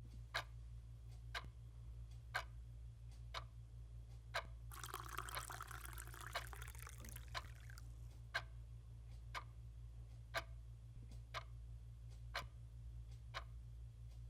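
A clock ticking steadily, about once a second, over a low hum. From about five seconds in, liquid pours for roughly three seconds.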